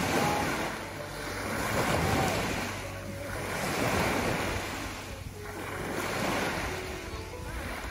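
Small waves breaking and washing up a sandy beach, the surf swelling and falling back about every two seconds.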